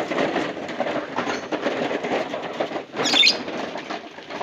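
Plastic toy truck rattling and clattering as it is pulled over an uneven stone path, a dense run of small clicks and knocks. A brief high squeak about three seconds in.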